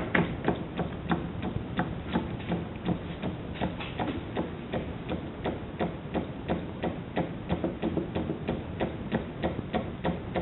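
T E Haynes school-built hot-air (Stirling) engine running slowly just after a hand start, its mechanism clicking in a steady rhythm of about three to four knocks a second. It is still warming up, so it is not yet running fast.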